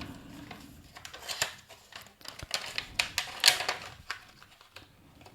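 Irregular small clicks and scrapes of a power bank's retail package being handled and opened, thickest in the middle of the stretch.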